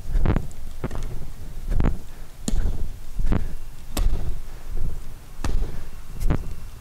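Wing Chun training ring knocking against the hands and forearms as it is caught, turned and punched through, about nine sharp knocks a little under a second apart.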